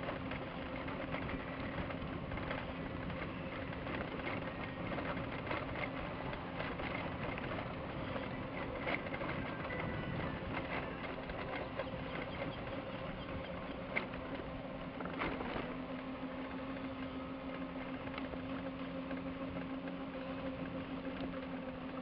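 Electric scooter running steadily, its motor giving a steady hum while the wheels rattle and tick over wooden boardwalk planks, with a few sharper knocks about 9, 14 and 15 seconds in.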